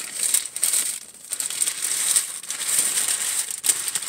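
Subway sandwich paper wrapper being crumpled and balled up in the hands: loud, irregular crinkling and crackling, with a brief lull about a second in.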